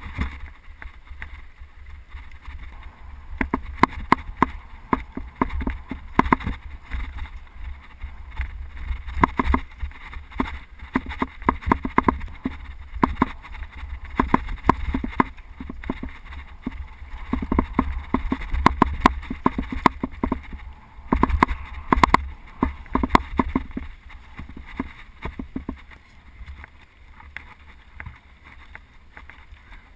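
Mountain bike being ridden over rough trail: steady wind noise on the microphone, with many irregular sharp clicks and rattles from the bike jolting over bumps, thinning out near the end.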